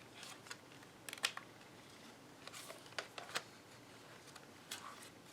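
Faint scattered clicks and taps of an SSD and plastic laptop parts being handled while the drive is plugged into an Acer laptop's drive bay, with small clusters about a second in, around three seconds in and near the end.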